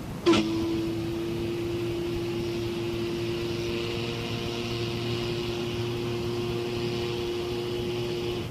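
Ship's whistle sounding one long steady blast with a hiss over it, starting abruptly with a click and holding for about eight seconds before cutting off.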